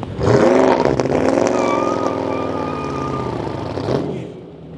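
Dodge Charger doing donuts: the engine revs loudly, rising and falling at high rpm, over squealing tyres, then drops away about four seconds in.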